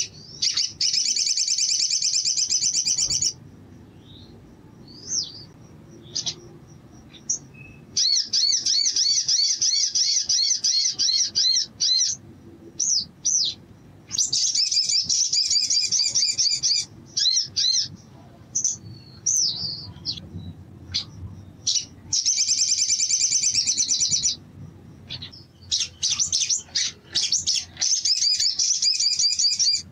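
Olive-backed sunbird singing: five fast, high, trilled song phrases of about three seconds each, with short chirps and slurred calls in the pauses between them.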